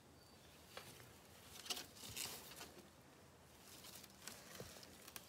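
Near silence with a few faint rustles and light knocks as plastic pieces and debris are picked up off dry leaf litter.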